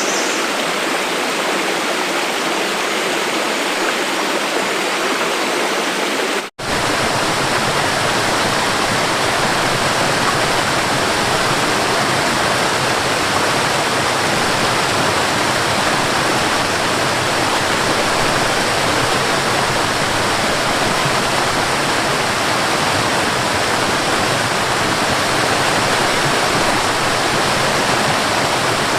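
Mountain waterfall rushing steadily. The sound drops out for an instant about six and a half seconds in and comes back fuller, with more low rumble.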